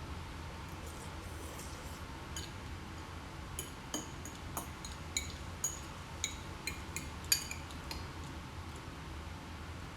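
Cutlery clinking and tapping against a plate while eating spaghetti: a scattered run of short, ringing clinks through the middle few seconds, the sharpest about seven seconds in, over a steady low room hum.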